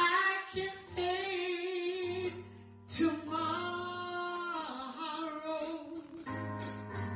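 Gospel song: a woman's voice singing long, wavering held notes over instrumental backing with steady bass notes. The music starts suddenly at the outset.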